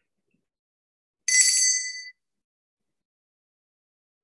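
A single high-pitched bell-like chime about a second in, ringing for under a second and then cutting off abruptly.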